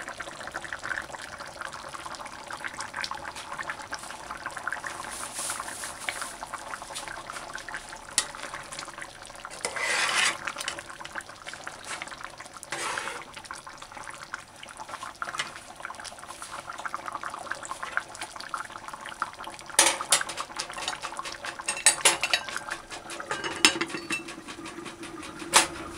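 A metal slotted spoon scraping and clinking in an aluminium pot of simmering curried pig's trotters and butter beans, stirring the stew off the bottom where it is starting to stick. Sharper metal clinks in the last several seconds as the aluminium lid is set on the pot.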